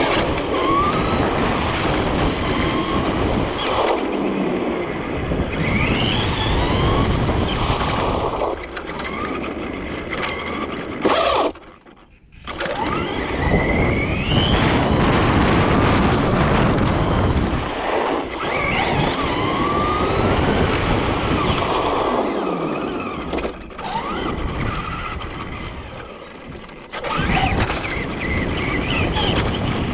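Traxxas RC truck driving fast, its motor and drivetrain whining up and down in pitch as it speeds up and slows, under steady wind and tyre noise on the onboard mic. The sound cuts out briefly about twelve seconds in, then picks up again.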